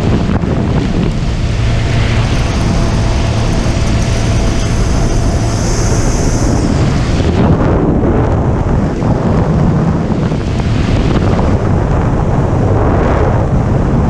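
Wind buffeting the microphone over a 2015 Honda Grom's 125 cc single-cylinder engine running steadily under way.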